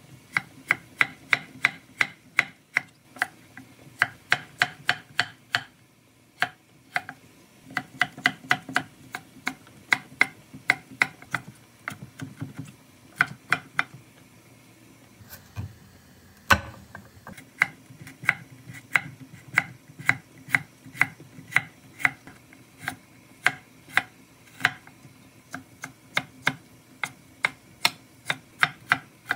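Knife chopping on a cutting board in steady rhythmic strokes, about three to four a second, in runs broken by short pauses, with one louder knock about halfway through.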